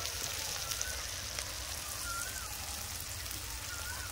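Spice masala frying in oil in a kadhai: a steady, soft sizzle with fine crackles.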